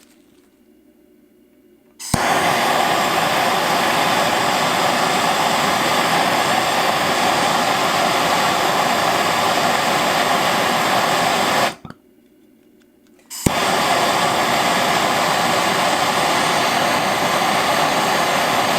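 Handheld plumbing torch lit with a sharp click about two seconds in, its flame running with a loud steady hiss as it heats a copper pipe joint. The flame cuts out near the middle and is relit with another click a second and a half later.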